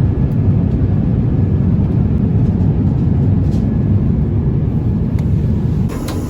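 Steady low rumble of airliner cabin noise in flight aboard an Airbus A350-1000. Near the end the sound shifts, with a higher hiss coming in.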